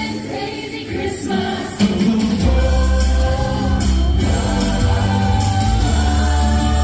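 Christmas music with a choir singing, over a heavy bass line that drops out briefly and comes back in about two and a half seconds in.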